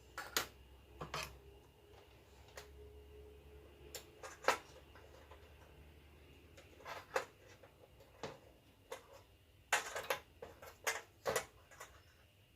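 Scattered clicks and light taps of small hand tools and parts being handled, irregular, with a cluster of sharper clicks near the end.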